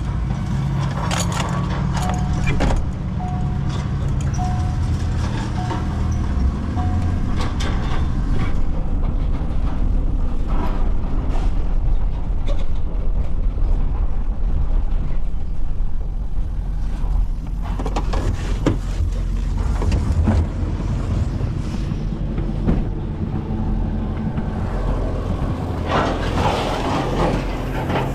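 Chevrolet truck's engine and road noise heard from inside the cab while driving, a steady low rumble. A short beep repeats about once a second for several seconds early on, and there is a cluster of rattling knocks near the end.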